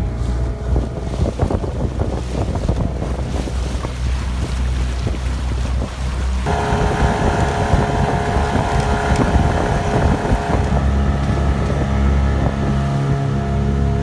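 Motorboat engine running under way, with wind buffeting the microphone and water rushing past the hull. About halfway through, the drone turns steadier and fuller.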